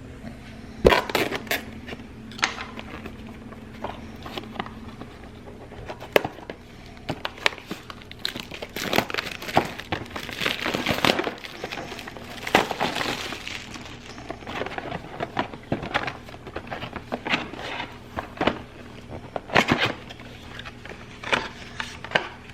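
A cardboard package being opened by hand: packaging rustling and crinkling, with scattered clicks and knocks, busiest about halfway through.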